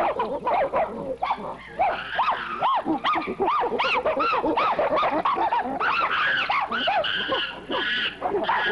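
Several chimpanzees calling at once in a squabble over food: a rapid stream of short rising-and-falling cries overlapping one another, growing denser and higher-pitched in the second half.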